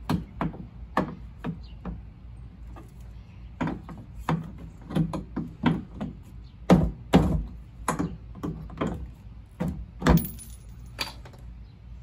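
Hammer tapping a screwdriver to work a push-on cap off the end of a plastic waste tote's wheel shaft: about twenty sharp, irregular metal taps and clicks with a short pause after the first few, the hardest blows coming a little past halfway.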